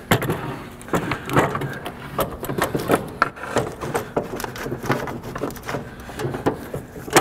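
Plastic radiator fan shroud and electric fan assembly being worked down into place behind the radiator, with irregular scraping, rattling and knocking of plastic against the radiator and the parts around it.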